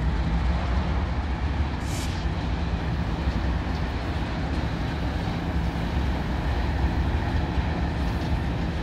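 Diesel locomotive running steadily, a low engine rumble with a short hiss about two seconds in.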